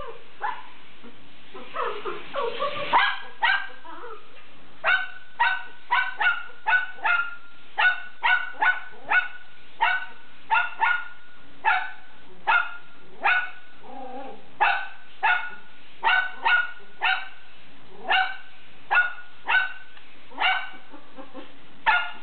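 A poodle puppy barking in a long string of short, high yips, about two a second, starting a few seconds in.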